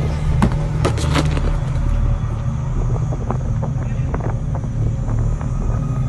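A steady low rumble, with a few sharp knocks and clatters about half a second to a second and a half in and lighter taps a few seconds later.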